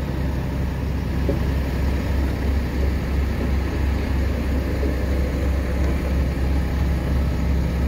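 Large diesel engine idling: a steady, unbroken low drone.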